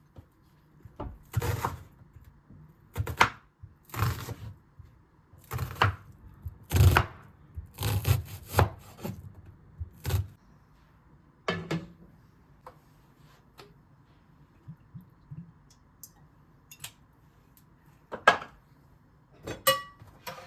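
Kitchen utensils knocking and scraping on wood during food preparation: about ten separate knocks in the first ten seconds, then a few light taps and two more knocks near the end.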